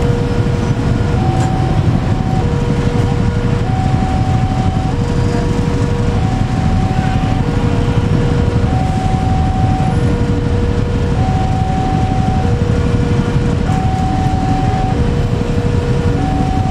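Container flat wagons of a freight train rolling slowly past during shunting, a steady low noise from the wheels and bogies. Over it a two-tone warning signal alternates between a lower and a higher note, each held a little over a second.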